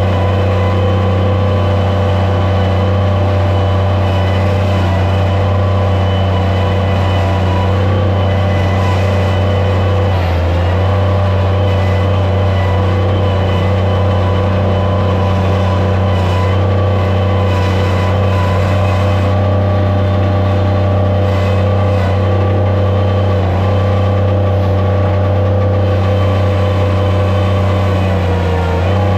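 Skid steer loader's engine running steadily at a constant speed, with a brief dip about ten seconds in.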